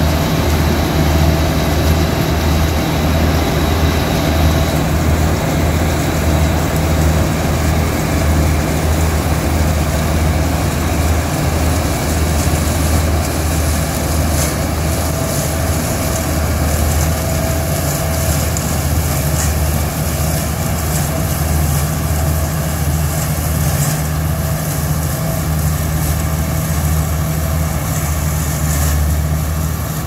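NSG 930 Deluxe combine harvester running steadily while harvesting: a steady, loud low engine hum with the noise of its belt-driven threshing machinery, heard up close.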